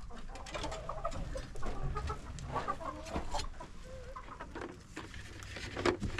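Domestic hens clucking in a coop, many short calls overlapping throughout, with a few sharp clicks near the end.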